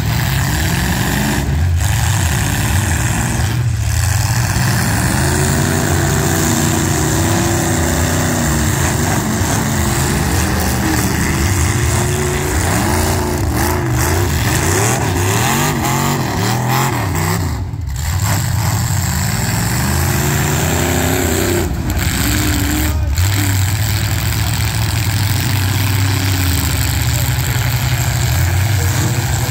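Several demolition derby cars' engines running together, revved up and down over and over, their pitch rising and falling in repeated sweeps above a steady low rumble.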